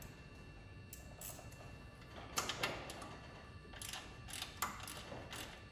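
Socket ratchet clicking in several short, irregular bursts as a 10 mm ground bolt is snugged down over a ground wire's terminal.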